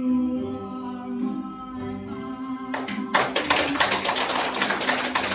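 A song with a sung melody plays, then about three seconds in an audience breaks into applause, many hands clapping over the music, which carries on faintly beneath.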